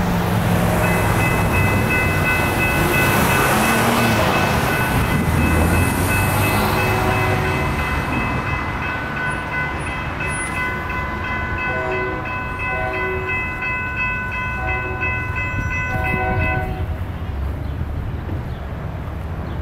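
Railroad crossing warning bells, General Signal Type 3 electronic bells, ringing in a rapid steady pattern as the crossing activates and the gates come down. They start about a second in and stop about 17 seconds in, with the gates down.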